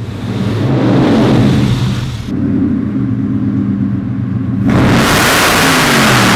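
Supercharged Ford Coyote V8 of a Model A hot rod pickup running with a steady, deep engine note, rising to a louder rush of engine and exhaust noise about two-thirds of the way through.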